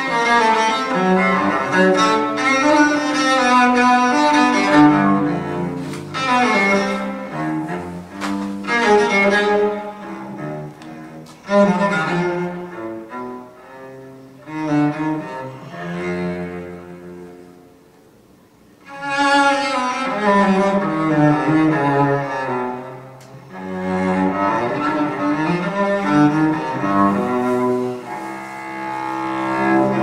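Bowed string music played back through Natural Sound 1 field coil loudspeakers, which use a 15-inch Maxonic field coil driver and a Maxonic compression tweeter. It moves in phrases, falling almost quiet a little past halfway before picking up again.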